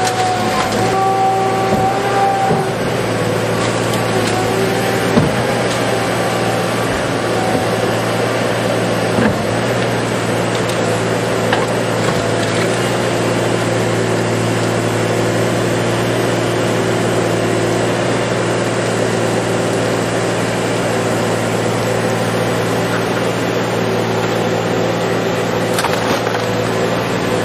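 Scrap shredder working on a car: a steady heavy engine drone under load, with a few sharp cracks of metal being torn.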